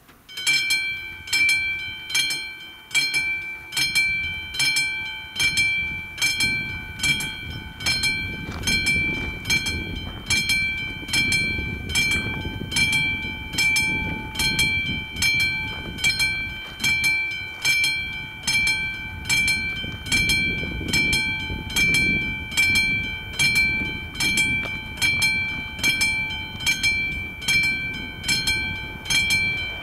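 Level crossing warning bell striking about once a second, with a ringing metallic tone, as the crossing's AŽD 71 signal activates for an approaching train. A low rumble swells underneath at times.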